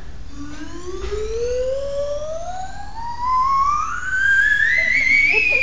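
Water-filled turkey baster blown as a slide whistle: one long whistle rising steadily from low to high pitch as the bulb pushes the water up and shrinks the air space, then wavering near the top toward the end.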